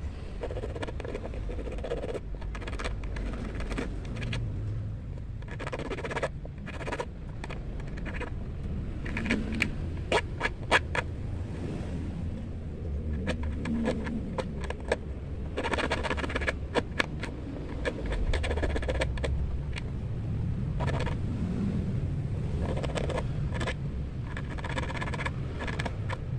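Small needle file scraping on a steel fishhook in bursts of quick strokes with short pauses between, filing the point into a barb.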